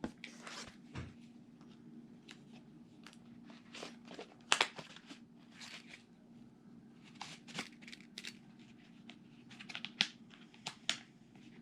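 Faint handling noise: scattered light clicks and brief rustles from a multi-tool being turned over in the hands, over a low steady hum.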